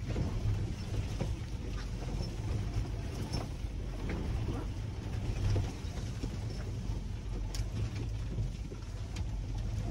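Land Rover 4x4 driving over an unpaved forest track: a steady low engine rumble with scattered short knocks and rattles from the bouncing vehicle.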